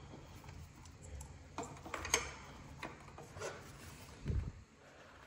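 Hands handling wiring and connectors against an e-bike frame: a few small scattered clicks and rubbing, with a soft thump a little after four seconds in.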